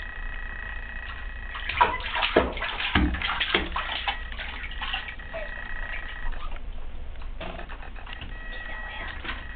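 Bathwater splashing and sloshing around a baby in a bath seat, with a run of splashes a couple of seconds in, then quieter lapping.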